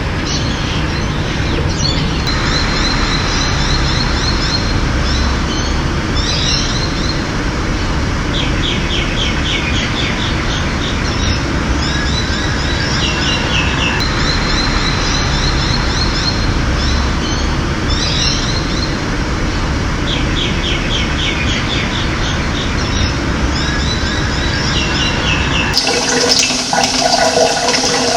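Steady rush of running water with birds singing over it in short runs of quick chirps every few seconds. Near the end the sound cuts suddenly to a different, louder gush of water.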